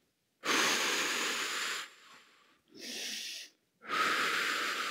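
A woman breathing hard, catching her breath after a strenuous exercise: three deep breaths, the first and last loud and long, a softer one between.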